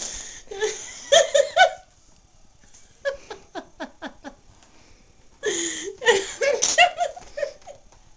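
Women laughing hard in three bursts, the middle one a quick run of short "ha-ha" pulses.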